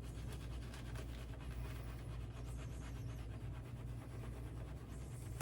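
Shaving brush working a hydrated lather of soap, a fast, steady soft scratching and swishing of bristles over a low hum.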